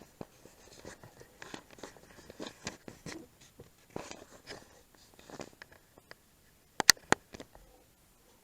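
Irregular scratching and rustling close to the microphone, then two sharp clicks in quick succession about seven seconds in.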